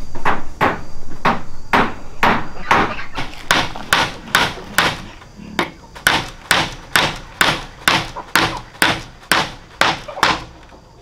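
Steady hammer blows on the top rail of a bamboo fence, about three a second, with a short pause midway; they stop near the end.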